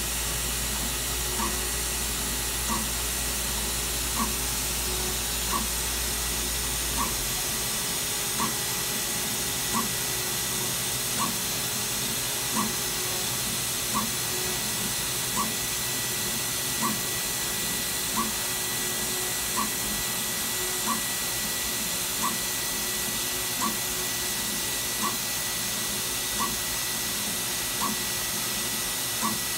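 Datron M8 Cube CNC machine running with its dispensing head tracing over a part: a steady hiss and hum with a thin high tone, and a short click about every second and a half. A low hum drops away about seven seconds in.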